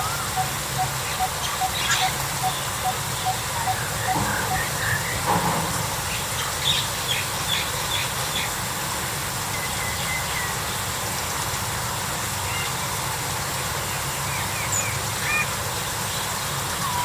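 Birds calling: one bird repeats a single short note two or three times a second for the first four seconds or so, while other birds chirp and trill at higher pitch over a steady low hum.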